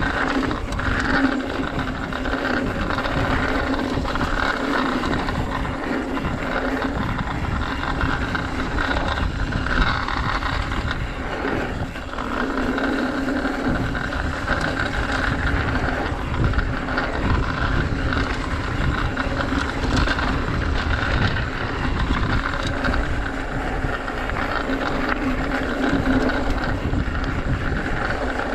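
Mountain bike riding a dirt trail, picked up on a GoPro action camera: a continuous rush of tyre and wind noise on the microphone, with small rattles and knocks from the bike.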